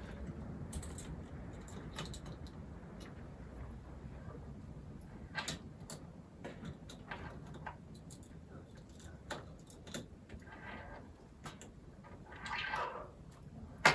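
Small clicks and taps of a screwdriver and hands working on a laptop's insides while the heatsink is unscrewed and lifted out, with a short scraping rasp near the end.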